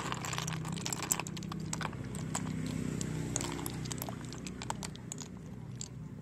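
Wet snail shells clicking and clattering against one another as a hand stirs and scoops them in a basin of water, in irregular sharp clicks over a steady low hum.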